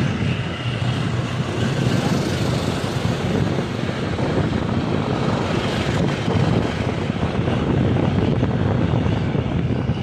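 Riding an open vehicle along a street: its engine running and wind rushing over the microphone, making a steady, loud, rumbling noise.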